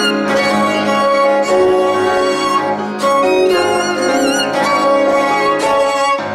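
Piano trio of violin, cello and piano playing a hymn arrangement. The violin carries the melody in long notes with vibrato over a held low cello note and piano accompaniment.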